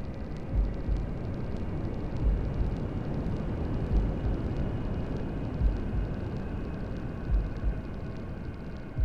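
Steady hair-dryer white noise with a heartbeat sound mixed in: a low double thump, lub-dub, about every second and a half to two seconds, five beats in all.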